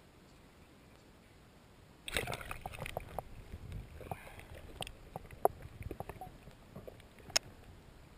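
Bass being released by hand, heard through an underwater camera's housing: after a quiet start, a splash about two seconds in as the fish and hand go into the water, then sloshing and bubbling with scattered sharp clicks and knocks.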